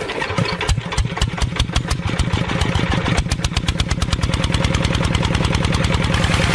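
Small engine starting and running: separate firing beats a few per second that quicken over the first few seconds into a steady, fast run.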